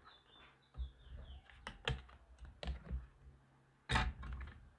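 Blu-ray discs clicking off the hubs of a steelbook's clear plastic disc tray, then the tray being handled. There are several sharp plastic clicks, with the loudest clack about four seconds in.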